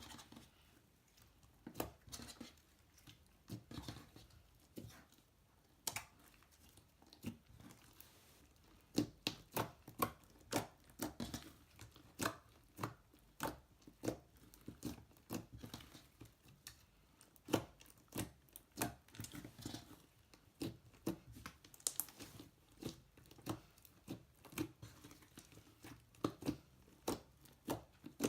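Slime being squeezed, stretched and pressed by hand, making a steady run of irregular sharp clicks and pops.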